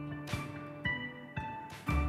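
Instrumental background music: notes struck about twice a second, ringing on over a held low note.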